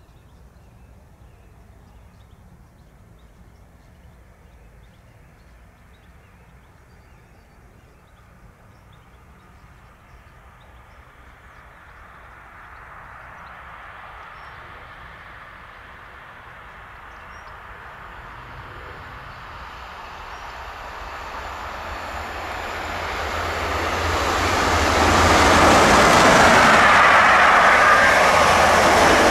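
A train approaching, growing steadily louder over about twenty seconds until it is running past loudly near the end, with the rush and rumble of wheels on rail.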